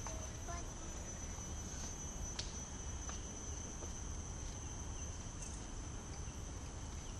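Insects droning steadily in one continuous high-pitched tone, over a low background rumble.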